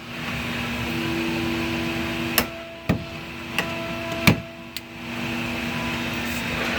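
About five sharp clicks and knocks in the middle of the clip, over a steady hum: a clip-on electrical fitting being handled and snapped into place on an office table.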